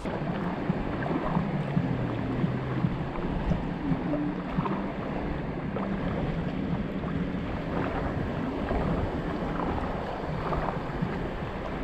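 Steady wind on the microphone over waves washing at the shore, with a low, uneven hum underneath.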